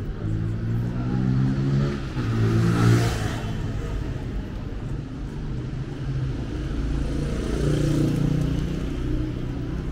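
Street traffic: motor vehicle engines accelerating, their pitch rising twice in the first three seconds and again about seven seconds in, with a loud rush as one passes close about three seconds in.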